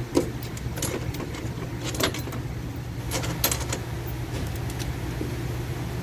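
Scattered metal clicks and light knocks as clutch actuators are handled and jiggled into place on a Ford DPS6 dual-clutch transmission case, with a cluster of sharp clicks about three seconds in, over a steady low hum.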